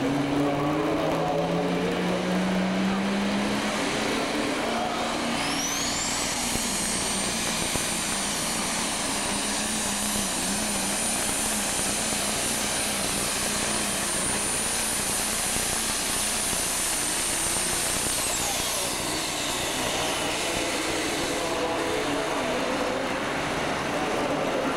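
Super stock pulling tractor's turbocharged diesel engine revving up under full load as it drags the weight sled. About five seconds in a high turbocharger whine climbs and holds steady for about twelve seconds, then winds down as the pull ends.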